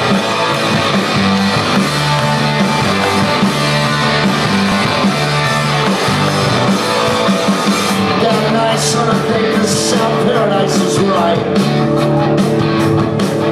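Rock band playing live, loud electric guitars and bass over a steady beat, with drum cymbals crashing in from about eight seconds in.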